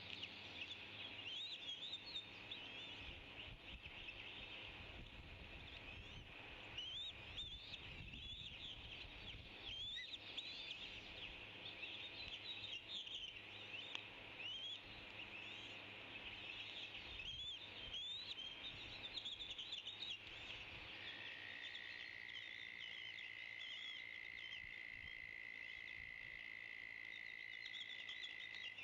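Eaglet calling in a rapid series of short, high, rising chirps. A steady high tone joins about two-thirds of the way through.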